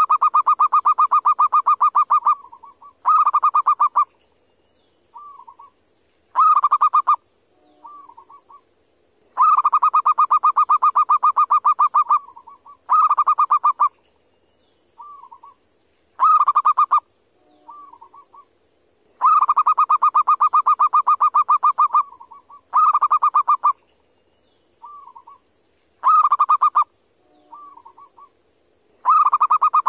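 Zebra dove (perkutut) calling: rapid pulsed cooing trills around one pitch, a long trill of about two to three seconds followed by two short ones with soft low notes between, the pattern repeating about every ten seconds. A faint steady high hiss runs underneath.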